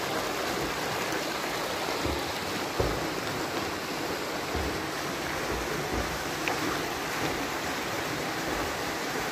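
Steady rushing noise of a waterfall pouring into a rock pool, with swimmers splashing in the water.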